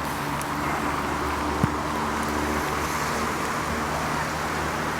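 Steady road traffic on a rain-soaked street: a low engine hum under an even hiss of rain and tyres on wet pavement, with one brief click about a second and a half in.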